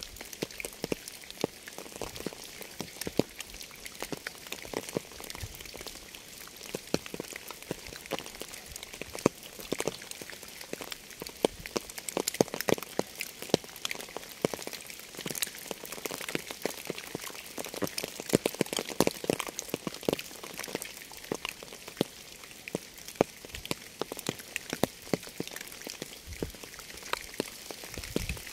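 Steady rain, with many individual drops landing close by as irregular sharp taps over a soft, even hiss.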